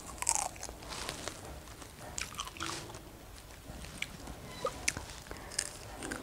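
A person biting into and chewing fresh strawberries, with short mouth clicks and smacks scattered irregularly throughout.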